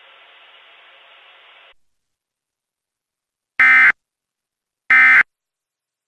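Emergency Alert System end-of-message data bursts: two short, harsh, modem-like bursts of digital SAME code about 1.3 seconds apart, the signal that closes an EAS alert. A faint radio hiss before them stops about two seconds in.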